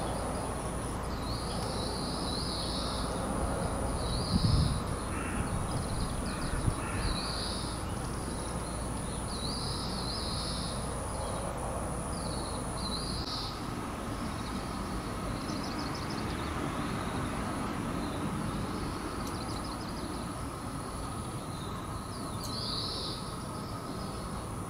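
Outdoor ambience: a high call repeated every second or so over a steady thin high whine and a low rumble, with two brief thumps about four and a half and seven seconds in.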